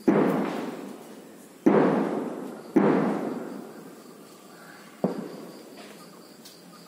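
Four loud bangs: three close together over the first three seconds, then a weaker fourth about five seconds in. Each one echoes and dies away over about a second.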